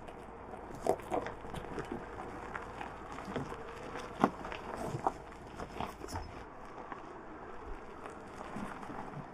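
Tyres of a Mercedes-Benz EQS SUV crunching slowly over loose gravel and stones, an irregular run of crunches and sharp cracks that thins out after about six seconds.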